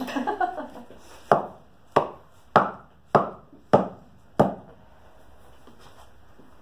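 A hatchet set in the end of a small log on a chopping block is struck six times in quick succession, about one sharp knock every 0.6 s, driving the blade into the wood to get a bite. A short jumble of knocks and scraping comes just before the strikes.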